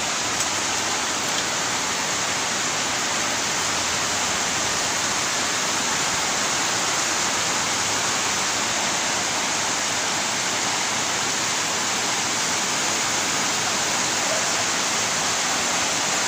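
Heavy rain falling in a steady downpour, an even, unbroken hiss of water that never lets up.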